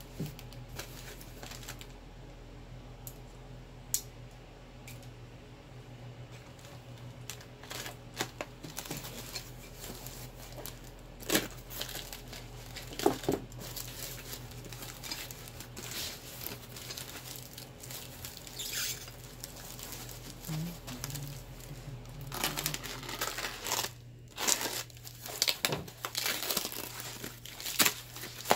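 Crinkling and rustling of plastic-wrapped foam packaging being handled and pulled open, with irregular crackles and a few sharp snaps, busiest near the end.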